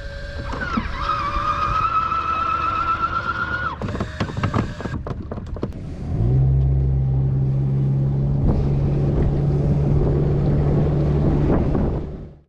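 A high, slightly wavering whine and some clattering, then a boat's outboard motor starts about halfway through and idles steadily until the sound cuts off.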